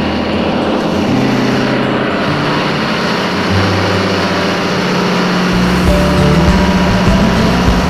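Loud, steady din of running engine-room machinery on an offshore rig: big engines and generator sets working together.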